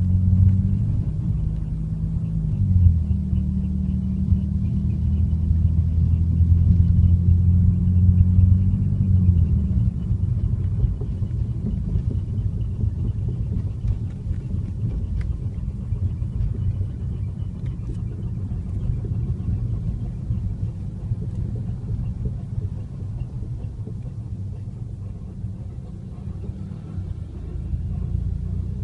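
Ford Fiesta Mk7.5 EcoBoost running with a low droning hum that shifts briefly about three seconds in, gives way at around ten seconds to a low rumble with no clear tone, and comes back near the end.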